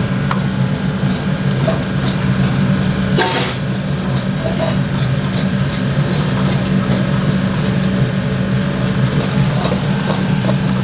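Steel ladle stirring and scraping chopped onions around a metal kadai, with scattered clicks and one louder scrape about three seconds in, over a steady low mechanical hum.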